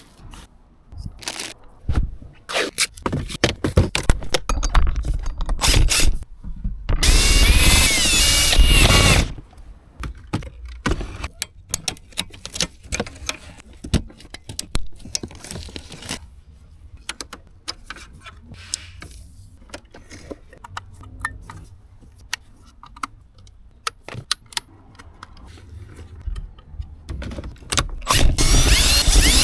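Hands-on work on a car's interior trim: a run of clicks, snaps and rubbing from plastic panels and small parts, with a power driver whirring for about two seconds in the middle and again near the end.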